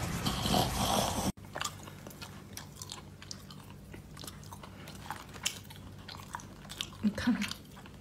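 A dog's loud noisy breathing that cuts off abruptly about a second and a half in. Then a person chewing food close to the microphone: many small crisp clicks and crunches, with a couple of short low voice-like sounds near the end.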